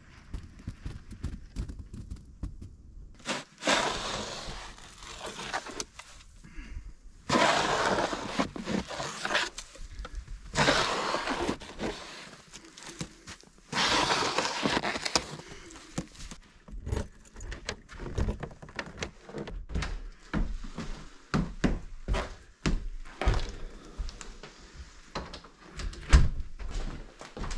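Snow shovel scraping snow across a wooden deck in four long pushes of about a second and a half each. Then a string of short knocks and footfalls, and near the end a loud thunk as the cabin's front door is closed.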